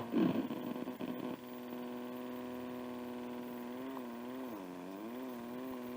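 Circuit-bent Tyco talking Big Bird doll's voice chip glitching: a garbled, warbling voice for about a second, then a steady buzzing drone that sags in pitch about four seconds in and wobbles back up.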